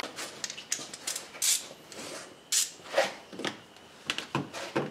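Irregular clicks, knocks and short rustles of handling: the camera being moved and hand tools handled against metal parts in the engine bay.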